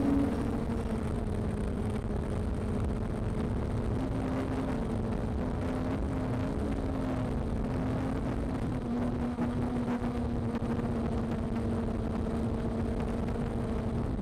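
Small camera drone's motors and propellers humming steadily, with a rushing noise of air; the pitch wavers slightly about a third of the way in.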